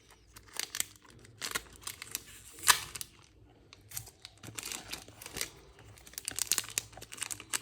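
Diecast model car packaging being opened by hand: a string of small crinkles, crackles and clicks with a sharper snap about two and a half seconds in, and a busier run of crackling near the end.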